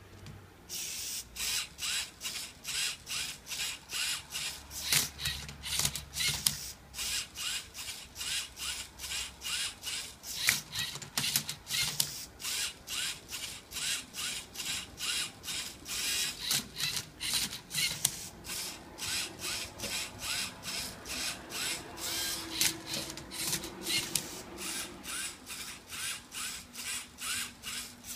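The motors and gears of a LEGO Mindstorms EV3 MindCub3r Rubik's cube robot, whirring in short, regular bursts about two or three times a second. This is the turntable stepping the cube round under the colour sensor during the colour scan.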